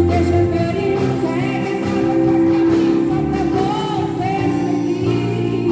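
Gospel worship music with a group of voices singing a sustained, slow melody over instrumental accompaniment.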